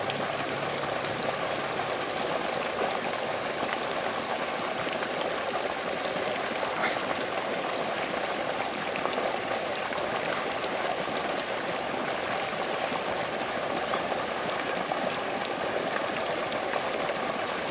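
A dense swarm of baby catfish churning and splashing at the surface of a pond while feeding: a steady, even water noise made of countless small splashes and ticks.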